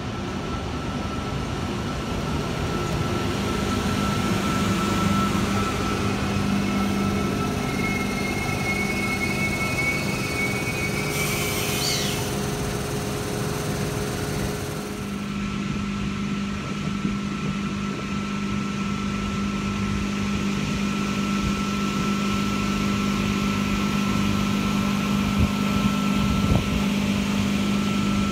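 Double-deck electric train at a station platform, its onboard equipment giving a steady hum with a few held tones. About twelve seconds in there is a brief high rising squeal.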